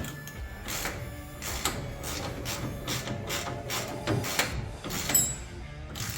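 Socket ratchet wrench clicking in a run of repeated strokes as suspension bolts are tightened.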